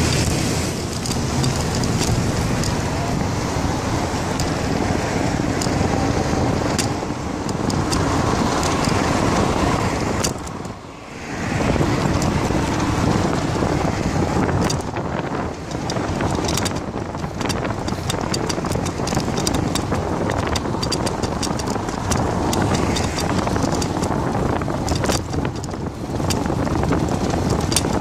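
Steady road traffic: cars passing on a multi-lane road, with the noise dipping briefly a little before halfway. Frequent short clicks and knocks run through the second half.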